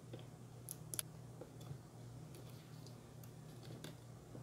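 Faint clicks and ticks as a small laptop I/O daughterboard with USB ports is worked loose by hand and lifted out of the chassis. Two sharper clicks come about a second in and fainter ones follow, over a low steady hum.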